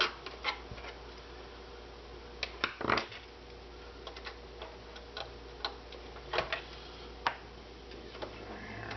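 Small screwdriver backing screws out of a PlayStation 3's chassis, with irregular light clicks and taps of metal on metal and a louder clatter about three seconds in.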